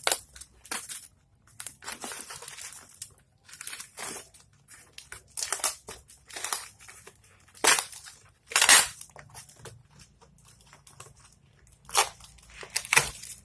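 Plastic packaging rustling and crinkling as it is handled, in an irregular series of scrapes. A few louder strokes come about eight to nine seconds in and again near the end.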